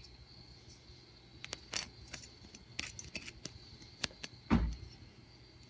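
Light scattered clicks and taps of multimeter test probes against a scooter engine's spark plug and ignition coil, with a dull thump late on.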